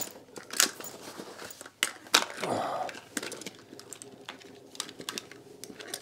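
Tangled cables and plastic plug-in power adapters being pulled out of a nylon backpack: irregular sharp clicks and clatters of plugs knocking together, with rustling of fabric and cable.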